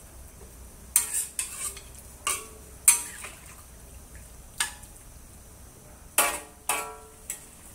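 Metal wok spatula scraping and clinking against a wok as chicken drumsticks and shiitake mushrooms are stirred. It comes as about nine separate strokes, roughly a second apart, and the two loudest, near the end, ring briefly.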